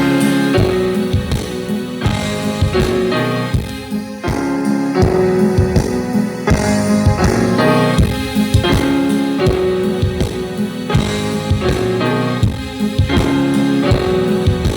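Music with keyboard and a steady beat of low thumps, played through a Sony SAW SS-XB88V super woofer speaker for a bass test.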